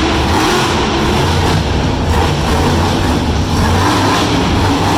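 A monster truck's supercharged V8 running loud and steady as the truck drives slowly across a dirt arena floor, heard from the stands of an indoor arena.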